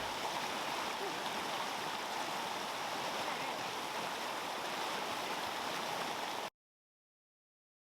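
Steady rushing water, like a canyon creek or waterfall. It cuts off abruptly about six and a half seconds in, leaving dead silence.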